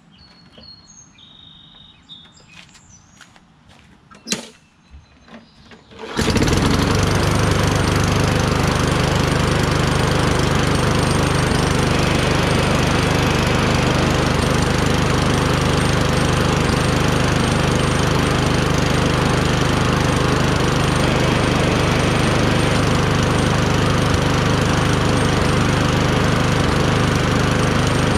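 Toro Recycler push mower's small gas engine starting after a few faint knocks: it catches about six seconds in and then runs steadily at one constant speed.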